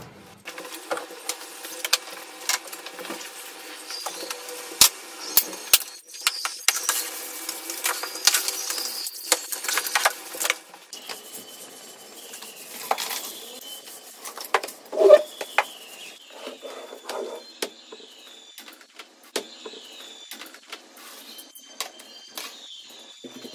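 Kitchen things being handled and set down, a run of irregular clicks and knocks with some rubbing and rustling, busiest a quarter to halfway through, with one louder knock a little past the middle.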